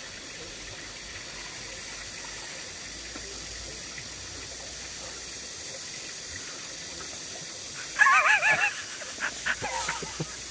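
A man gags and retches on a mouthful of fried stinky tofu about eight seconds in: a loud strained heave with a wobbling pitch, then a few smaller heaves. Under it runs the steady rush of a shallow stream.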